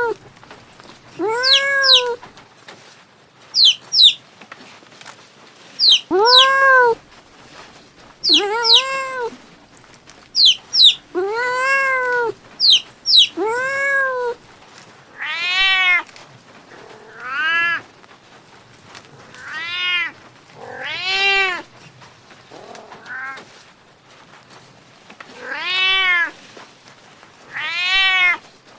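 Domestic cats meowing over and over, one drawn-out meow about every two seconds; the meows in the second half are higher-pitched.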